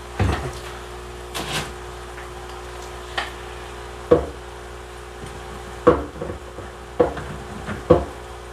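Aquarium rocks being handled and set into the tank: about seven separate knocks and clunks, a few seconds apart, over a steady hum.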